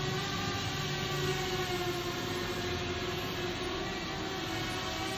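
Walkera Rodeo 150 FPV racing quadcopter hovering low: its four motors and propellers give a steady whine of several stacked tones that waver slightly in pitch as it holds position.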